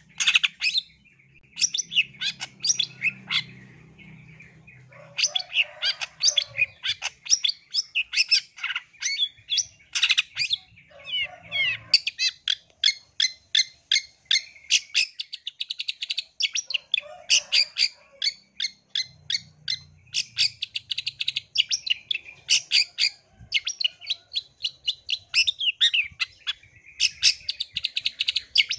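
Long-tailed shrike (cendet) singing: rapid runs of short, scratchy chattering notes, broken by a short pause about four seconds in.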